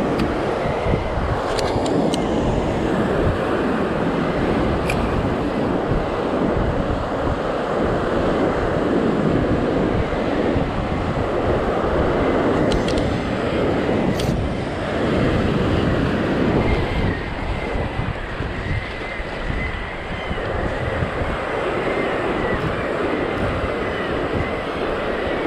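Ocean surf breaking and washing over the rocks, mixed with wind buffeting the microphone; a few faint clicks here and there.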